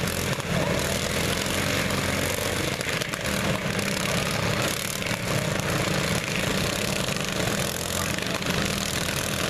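Several riding lawn mower engines running at once in a demolition derby, a steady overlapping engine drone.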